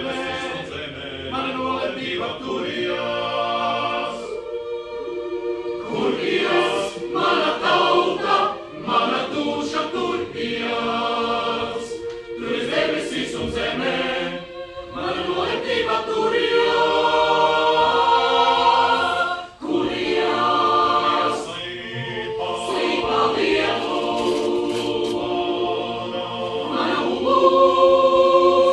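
Mixed choir singing a Latvian choral song in chords, phrase after phrase, with a short break about five seconds in and the loudest singing near the end.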